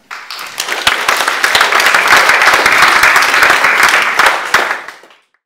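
Audience applauding: many hands clapping together. It starts suddenly, swells within the first second or two, then dies away and cuts off about five seconds in.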